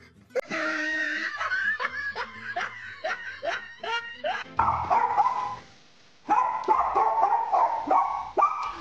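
A small dog barking and yapping repeatedly.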